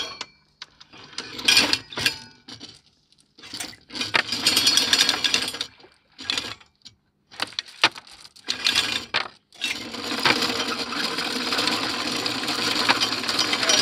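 Anchor chain rattling as it is paid out over the bow of a sailboat while anchoring. It comes in several short runs of clatter, then runs steadily from about ten seconds in.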